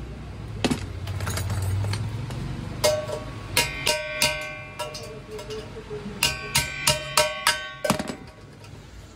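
A metal cooking pot ringing as it is struck again and again on the workbench, in two quick runs of sharp taps, each blow leaving the same bright metallic ring.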